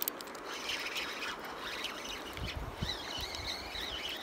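A bird calling with a wavering, warbling call that starts about three seconds in, over a steady outdoor hiss and a few low handling thumps.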